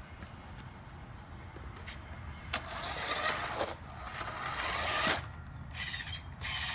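Radio Shack Golden Arrow remote-control car driving in short runs. Its electric motor and tyres make a rushing hiss that starts about two and a half seconds in, then stops and starts a few times.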